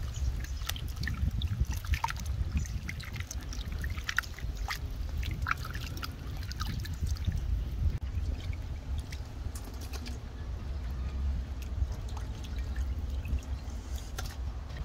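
Hands sloshing and squeezing raw chicken intestines and soft eggs in a steel bowl of water, with splashing and dripping as the intestines are lifted out. A steady low rumble runs underneath.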